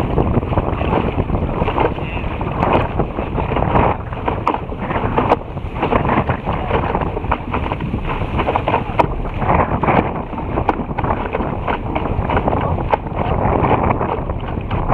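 Wind buffeting the microphone over water rushing and splashing against the bow of a Topper Topaz dinghy sailing fast through chop, a continuous loud rush that surges irregularly.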